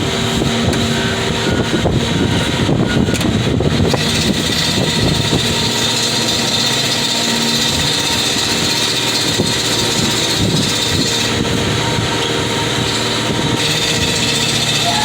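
Car crusher's engine running steadily at working speed. The crush cycle has stopped, but the engine has not idled down as it is supposed to, which the operator takes for a fault in the new remote's control.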